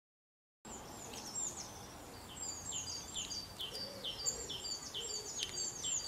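Small songbird singing a rapid series of high, thin notes, each sliding down in pitch, repeated over and over. The sound starts abruptly just under a second in.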